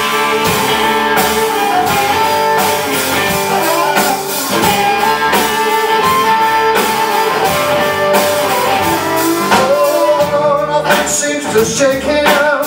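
Live blues-rock band playing an instrumental passage: a harmonica lead played into the vocal microphone, with bending held notes over electric guitar, bass guitar and drum kit.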